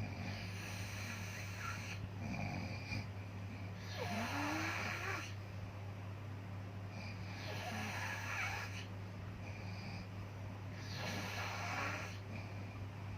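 Slow, rhythmic snoring: rasping breaths every two to three seconds, one with a short rising whistle about four seconds in, over a steady low hum.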